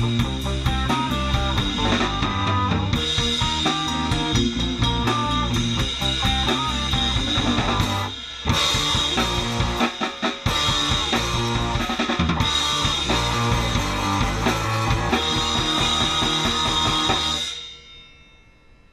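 Live rock band jamming in a small room: drum kit, electric guitar and keyboards in an experimental synth/stoner-rock groove, with a short break about eight seconds in. The playing stops abruptly near the end, leaving only a faint ring-out.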